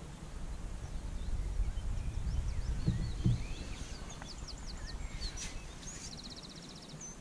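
Wind buffeting the microphone, a low rumble that builds over the first few seconds, with small birds chirping and trilling in the background from about halfway through.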